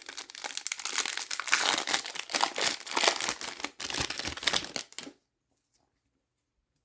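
Foil wrapper of a hockey card pack crinkling as it is handled and opened. The dense crackling stops abruptly about five seconds in.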